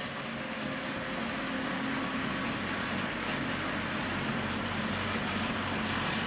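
HO-scale model Rio Grande diesel locomotives rolling along the track: a steady mechanical running noise with a low hum that grows gradually louder as they come past.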